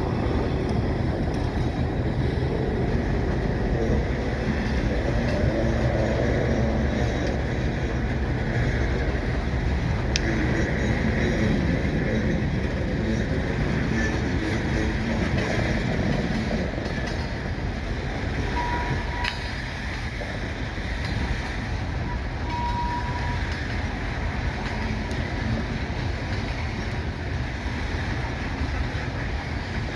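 Coal train rolling past on the rails, a steady rumble of the cars that eases off somewhat past the middle.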